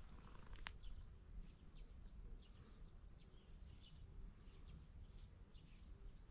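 Near silence outdoors: faint short chirps of distant birds scattered throughout over a low rumble, with a single sharp click just under a second in.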